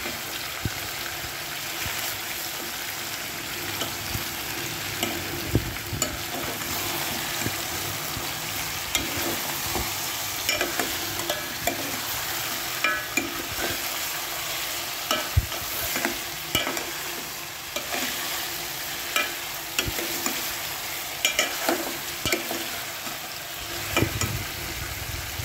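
Chicken pieces and browned onions sizzling in oil on high heat in a metal pot, stirred with a ladle that clicks and scrapes against the pot at irregular moments. The chicken is being fried dry of the water it releases.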